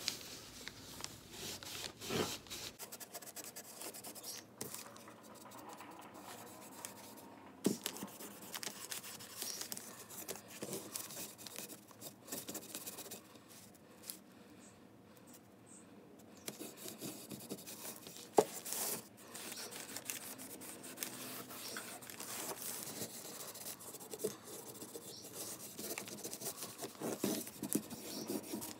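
Dark wood stain being rubbed onto a wooden frame by hand: soft, irregular scratching and rubbing, with a few light knocks as the frame is moved about.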